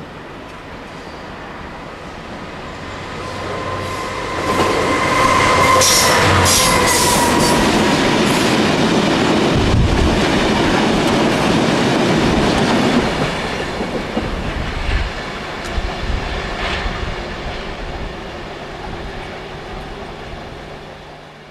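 Freight train of hopper wagons passing close by at speed. The noise builds as it approaches, is loudest while the front passes, with a high tone dipping slightly in pitch about six seconds in, then turns into the rhythmic clatter of wagon wheels over rail joints and fades away.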